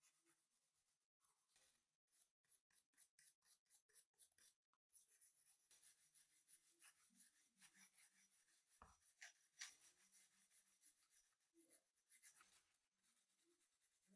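Quiet hand-worked scratching on an old rusty pipe wrench. It starts as a quick run of strokes, about four a second, then turns into steadier scratching and rubbing with small clicks.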